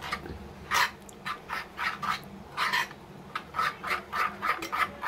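Metal spoon scraping and clinking against a small steel saucepan while stirring a thick, oily spice paste, in short uneven strokes a few times a second.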